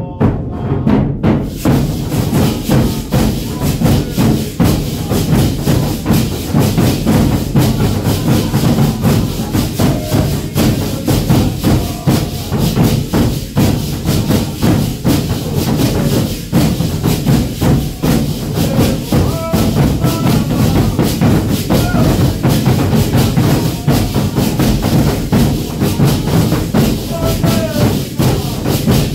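Several large rope-tensioned double-headed drums, the caixas of a Moçambique congado group, beaten together with sticks in a dense, driving rhythm that starts at once and keeps going.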